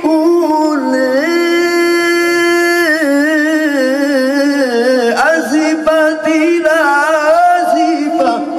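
A man reciting the Quran in the melodic tilawah style, sung into a microphone: a long held note, then wavering ornamented runs that climb higher a little past halfway.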